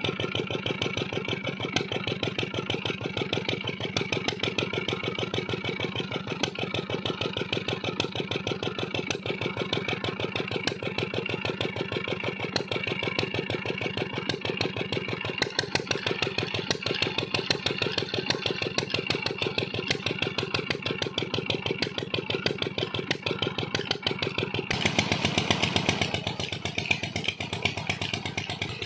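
Small air-cooled petrol engine, freshly repaired, running steadily with a rapid even firing beat. About 25 seconds in it briefly gets louder and fuller.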